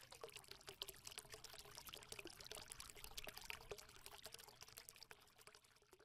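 Faint sound of liquid pouring or trickling: a dense crackle of small clicks that fades out near the end.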